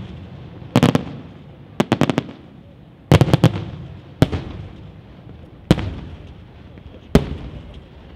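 Aerial firework shells bursting overhead: a string of sharp bangs about a second or so apart, two of them coming as quick triple cracks. Each bang leaves an echo that dies away before the next.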